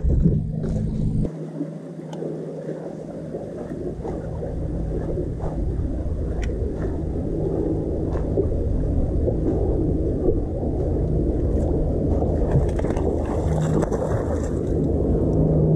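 Bass boat sitting on the water, with a steady low rumble of wind and lapping water. A low steady hum comes in at the start and again in the last few seconds.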